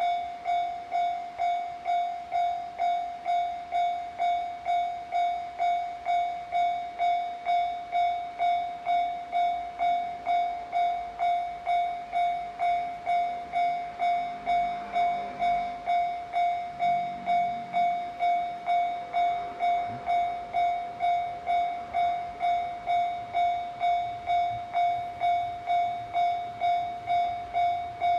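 Japanese level-crossing warning bell ringing, an electronic ding repeating evenly a little under twice a second: the crossing signal warning of an approaching train.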